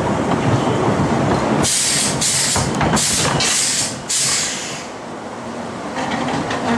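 Roller coaster train rumbling along the track, then several short, sharp hisses of air, typical of pneumatic brakes venting as the train is slowed.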